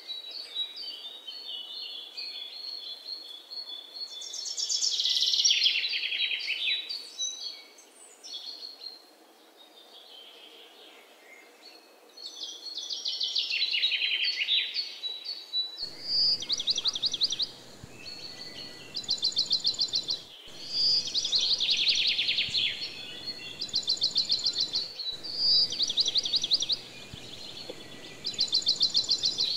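Birdsong: a run of short high chirps, then, from about halfway on, a bird repeating a fast trill every couple of seconds, over a faint background hiss.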